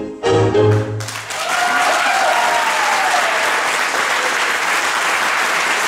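Tango music ends on its last notes about a second in, and the audience breaks into steady applause.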